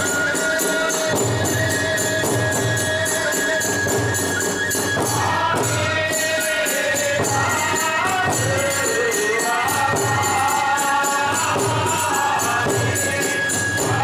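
Iwami kagura accompaniment: drum beats and small hand cymbals keep a fast, steady rhythm under a held, wavering melody line on a transverse flute.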